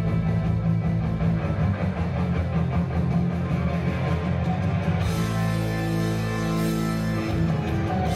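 Rock music with guitar played loud over a theatre's sound system and heard from the audience seats. The music becomes fuller about five seconds in.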